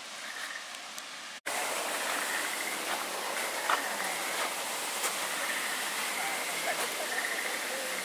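Steady rushing of running water in a wooded garden, with a thin, wavering high call running through it and a few faint chirps. The sound drops out for an instant about a second and a half in, then returns louder.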